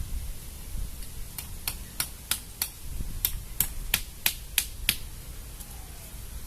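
Wind rumbling on the microphone, with a run of about a dozen sharp, high clicks, about three a second, starting about a second and a half in and stopping near five seconds.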